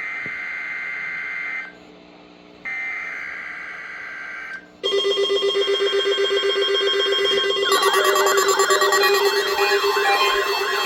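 NOAA Weather Radio SAME header data: two buzzing bursts of digital tones. About five seconds in, weather alert alarms set off by the test sound: a loud pulsing tone, joined about halfway through by warbling, siren-like sweeps.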